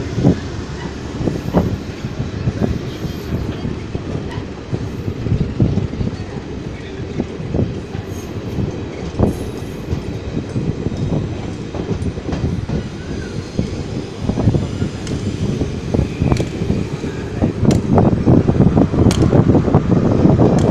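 Train running along the track, heard from inside the carriage: a steady rumble of wheels on rail with scattered clicks, growing louder near the end.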